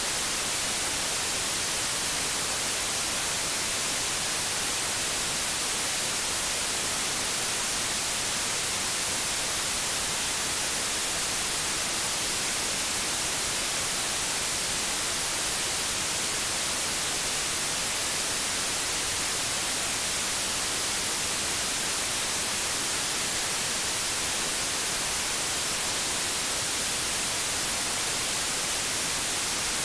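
Steady white noise: an even, unchanging hiss, strongest in the high treble.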